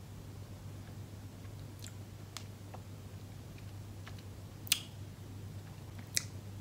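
Jelly bean being chewed with the mouth closed: scattered small wet clicks, two sharper ones about two thirds of the way through and near the end, over a steady low hum.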